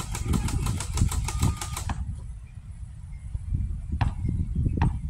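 Wind buffeting the microphone, with a fast even run of sharp clicks, about eight a second, that stops about two seconds in. Two single sharp knocks follow about four and five seconds in.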